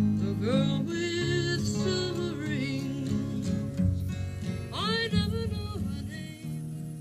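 Acoustic guitar strummed with a voice singing along, a dorm home recording played back from reel-to-reel tape on a Sony TC-350 deck.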